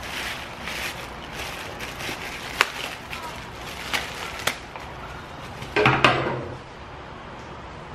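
Plastic wrap crinkling and tearing as metal creeper parts are unwrapped, with light clicks and knocks of the parts. About six seconds in, a metal tube frame is set down on the steel creeper deck with a louder clunk that rings briefly.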